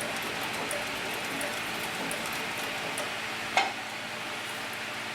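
Cowboy CB3500 compound-feed walking-foot lockstitch machine sewing stitch by stitch in reverse through leather under its servo motor, with a faint regular tick at each stitch. A single sharp click comes about three and a half seconds in.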